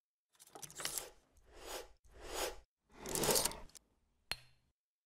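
Logo-animation sound effects: four swelling whooshes one after another, then a sharp click with a short ring about four seconds in.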